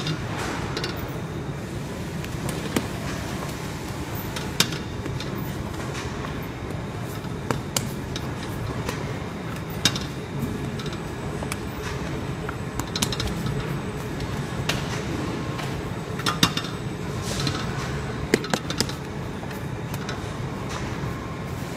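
Steady low hum of bakery machinery, with scattered sharp clicks and knocks, about one every second or two.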